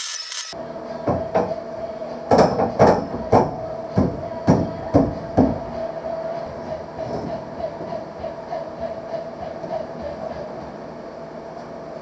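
Metal work on a steel roll cage joint: a run of sharp metal knocks, about two a second, for the first few seconds, then lighter rhythmic scraping, typical of a wire brush scrubbing a fresh weld, over a steady hum.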